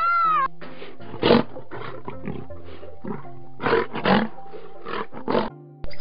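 A large animal growling and roaring in a series of rough bursts, over background music, after a short arched call at the very start.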